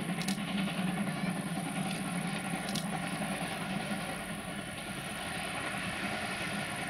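Steam locomotive and its train of passenger coaches rolling past, a steady running noise with a hiss of steam and a couple of clicks from the wheels. The sound eases slightly about halfway through as the coaches follow the engine.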